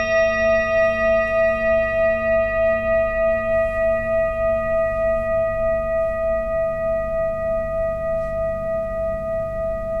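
A metal singing bowl rings out after a single strike, its main note and several higher overtones fading slowly. The tone wavers with a steady pulse about twice a second.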